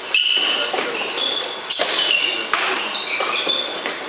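Badminton players' court shoes squeaking on the indoor court floor in many short high-pitched chirps, with a couple of sharp racket hits on the shuttlecock.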